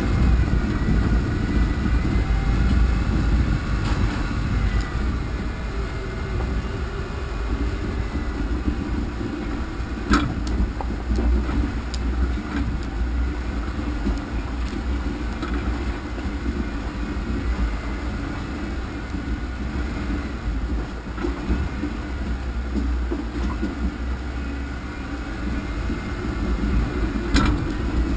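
An off-road vehicle's engine running steadily as it drives over a rocky dirt trail, with low rumble and rattle from the rough ground. Two sharp knocks, about ten seconds in and near the end, as it hits rocks.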